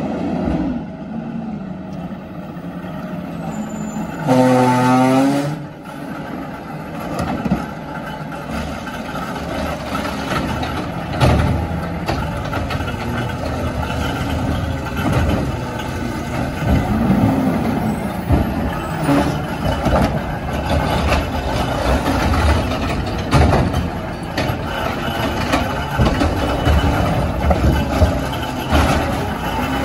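CNG Peterbilt 520 garbage truck with a McNeilus ZR automated side loader running and working, with knocks and clatter through the middle. A loud pitched blast about four seconds in lasts about a second and a half, and the engine revs up near the end.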